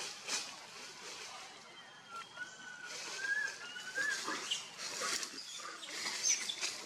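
Long-tailed macaques calling in short, harsh bursts, typical of an adult's open-mouth threat. A thin, wavering squeal runs from about two to four seconds in.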